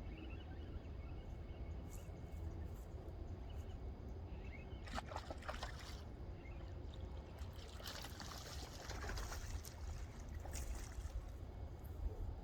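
Water splashing and trickling in irregular bursts, about five seconds in and again from about eight to eleven seconds in, over a steady low rumble of wind on the microphone.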